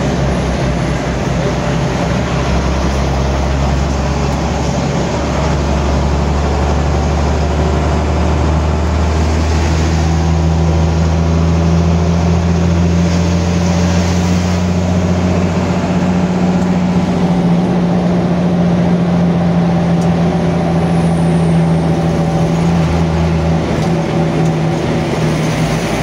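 Diesel bus engine and road noise heard from inside the moving bus: a steady low drone whose tone shifts about ten seconds in.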